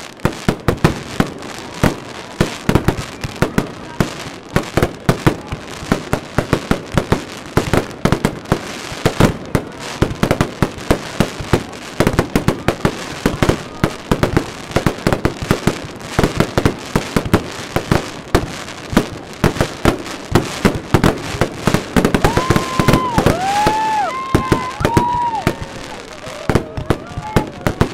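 Fireworks display going off in a dense, continuous barrage: rapid bangs and crackling several times a second with no pause. About three-quarters of the way through, a few short whistles rise and fall in pitch over the bangs.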